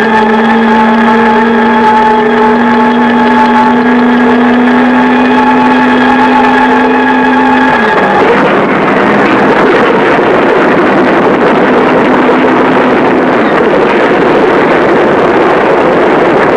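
A steady held tone, rising slightly in pitch, gives way abruptly about eight seconds in to the loud, rough roar of a B-17 Flying Fortress's nine-cylinder Wright Cyclone radial engines starting up and running.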